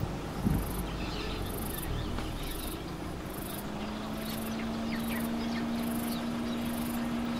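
Insect shrilling in pulses about once a second, with a few faint bird chirps. Two soft thumps come right at the start, and a steady low hum sets in about halfway through.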